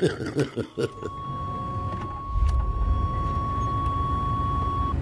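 Vehicle engine running, a low rumble that comes in about two seconds in, with a steady high tone held for about four seconds that cuts off near the end.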